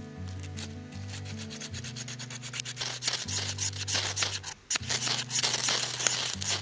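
A ferro rod being scraped hard in several quick strokes from about two seconds in, showering sparks onto wood shavings. Before that, a knife shaves wood faintly. Background music with a steady bass line plays underneath.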